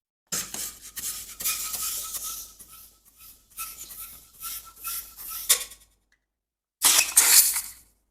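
Hands rubbing and squeezing an inflated rubber balloon. The rubber squeaks with a thin, steady tone through several seconds of scratchy rubbing, then after a short pause comes a second, louder bout of rubbing near the end.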